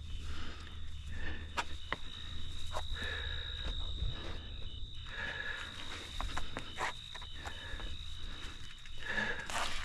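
Shoes scuffing and stepping on rock with short scrapes and clicks as someone climbs down a boulder field, over soft breathing. Behind it, crickets trill steadily at night.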